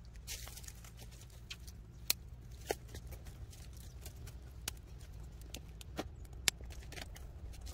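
Scattered light ticks and taps at irregular intervals, a few louder ones standing out, over a low steady rumble.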